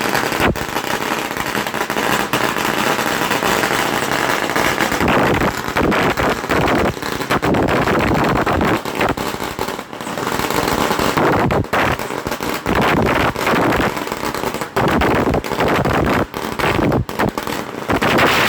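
Firecrackers going off in rapid, continuous crackling bangs for many seconds, with no break.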